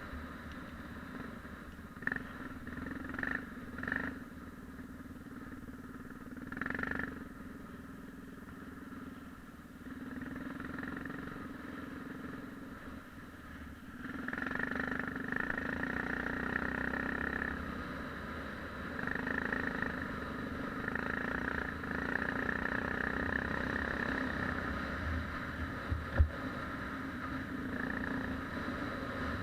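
Yamaha XT 600's single-cylinder four-stroke engine running under way, its level rising and falling with the throttle. A few short louder bursts come in the first seven seconds, it grows louder about halfway through, and there is one sharp knock near the end.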